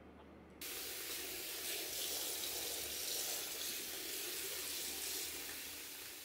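Water running from a tap into a sink. It starts suddenly about half a second in, runs steadily, and fades out near the end.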